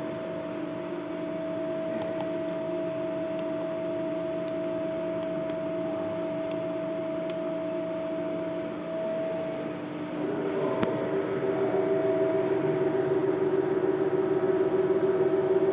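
CNC lathe running, a steady machine hum with a held whine. About ten seconds in the pitch shifts, a high thin whine joins it and it grows louder as the spindle rotation is being set.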